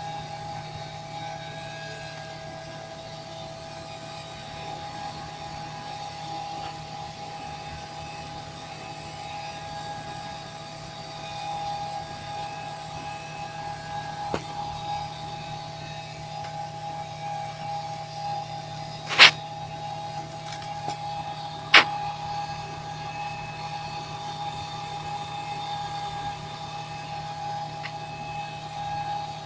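Steady hum of running equipment in an aircraft cockpit, with a low drone and two whining tones held level, broken by two sharp clicks about two and a half seconds apart, roughly two-thirds of the way in.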